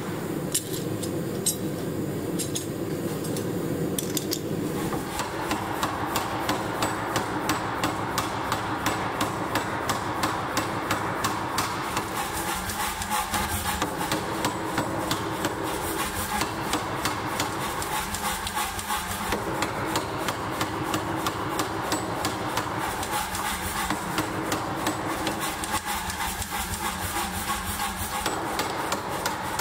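Power hammer running, with a fast, even knocking rhythm that carries on throughout.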